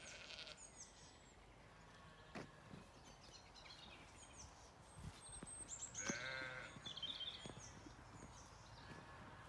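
Sheep bleating faintly: a short bleat at the start and a longer, wavering bleat about six seconds in.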